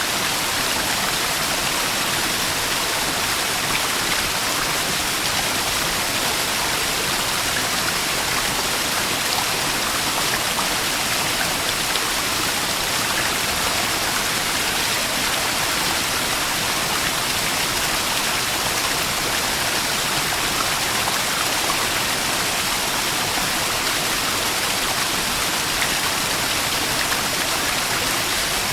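Small waterfall: water splashing and rushing in a steady, even hiss.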